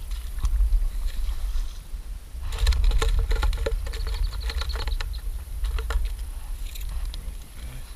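Wire-mesh fish basket rattling and clinking as it is handled, a run of quick metallic clicks from about two and a half seconds in to about six seconds, over a steady low rumble.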